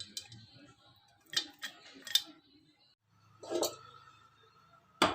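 Several sharp clinks and knocks of kitchen utensils against cookware, spaced irregularly. One knock leaves a brief ringing tone.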